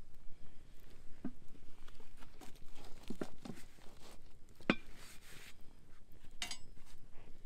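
Cast iron spider skillet and its Dutch oven lid knocking and clanking as the pot is set down in the campfire ashes. There are several light knocks and one sharp metallic clank about two-thirds of the way through, with a little scraping after it.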